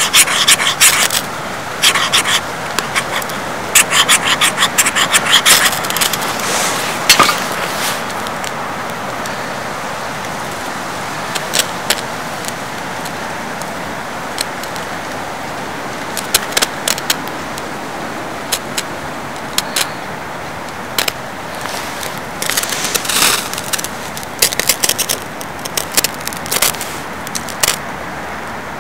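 Ferro rod struck with a steel scraper, sharp rasping strikes coming in quick bunches for the first seven seconds as sparks are thrown onto a tinder bundle. Scattered scrapes and crackles follow after the tinder catches, over a steady background hiss.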